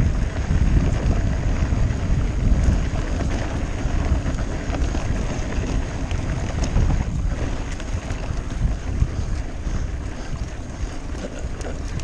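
Wind rushing over the microphone and a mountain bike rolling downhill over a dirt singletrack strewn with loose stones: a steady rumble of tyres on the ground, with many small clicks and rattles from the bike.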